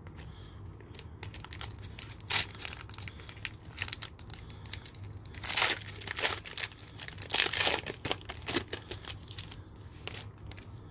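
Foil trading-card pack crinkling and tearing as it is ripped open by hand, in a series of crackly bursts that are loudest through the middle.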